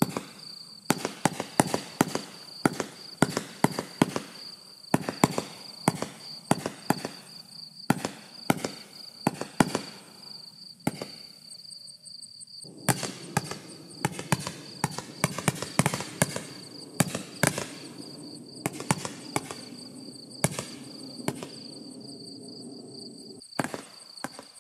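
Spook Fireworks barrage cake firing a rapid, irregular string of sharp bangs as the shots launch and burst, with a short pause about halfway through.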